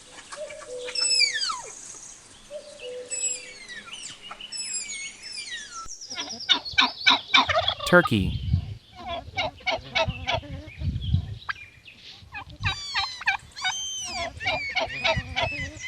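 Shrill, descending tapir whistles, then about six seconds in a domestic turkey gobbling in rapid repeated bursts, with further gobbles near the end.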